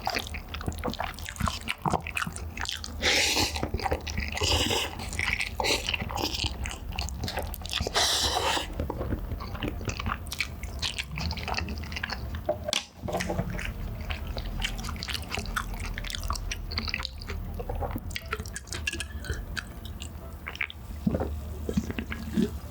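Close-miked chewing and biting of cheesy meatball pizza: many small mouth clicks, with a few louder bites about three to eight seconds in.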